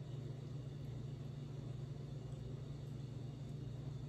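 Steady low background hum with no clear eating sounds.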